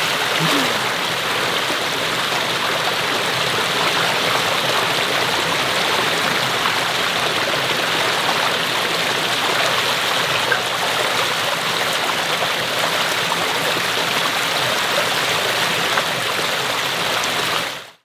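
Mountain valley stream flowing over rocks and small tiered drops, a steady, even rush of water.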